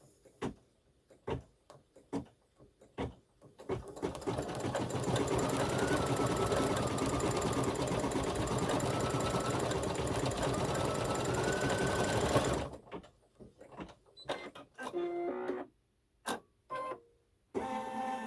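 Embroidery machine stitching a short eyebrow line: a few scattered clicks, then the machine starts about four seconds in, runs steadily with its pitch wavering a little, and stops just before thirteen seconds, followed by more light clicks.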